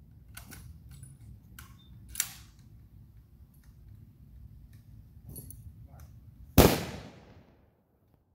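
A ceremonial rifle team firing an honor volley: one loud, sharp report about six and a half seconds in, its echo trailing off for about a second. Before it come scattered faint clicks and a smaller sharp crack about two seconds in.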